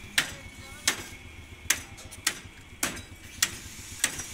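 A run of sharp taps or knocks at a fairly steady pace, about one every two-thirds of a second, seven in all.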